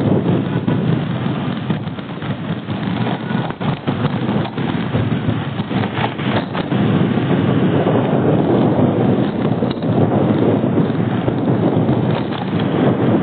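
Traffic noise heard while travelling: a dense, steady rush of vehicles and road, with wind buffeting the microphone and a few brief knocks. It dips a little in the first half and evens out from about halfway.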